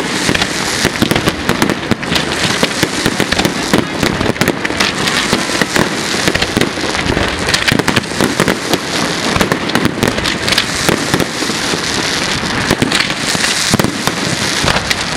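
Fireworks display: a continuous barrage of many overlapping bangs and crackles from rising rockets and bursting shells, with no break.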